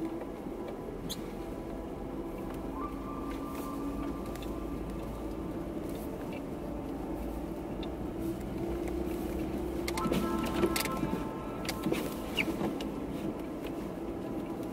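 Car driving slowly over a snow-packed road, heard from inside the cabin: a steady low rumble with scattered clicks and creaks.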